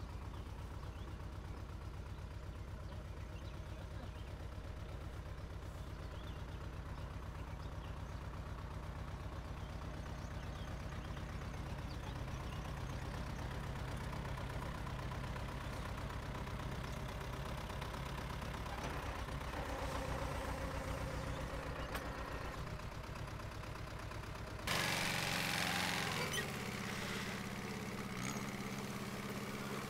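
Tractor engine running steadily with a low, even pulse. About 25 s in the sound turns suddenly louder and hissier, and near the end the engine revs up.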